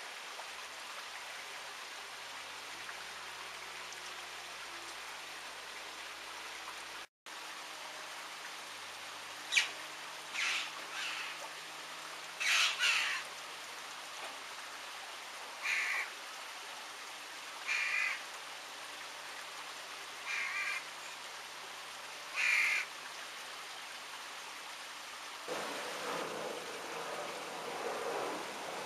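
A bird giving about eight short calls, a second or two apart, starting about ten seconds in, over a steady hiss. A louder rushing noise comes in near the end.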